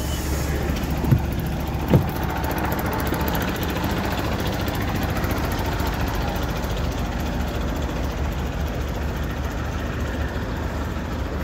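PAZ-320402-04 bus engine idling at a stop with a steady low rumble. Two short knocks come a little over a second and about two seconds in.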